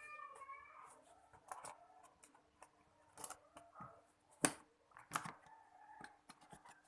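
Scattered light clicks and knocks of hard parts being handled while a rotary hammer drill is unboxed. The loudest are two sharp knocks about four and a half and five seconds in.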